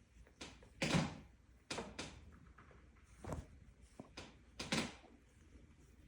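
A series of soft knocks and brushing sounds in a small room, about seven in six seconds, the loudest about a second in and another near five seconds.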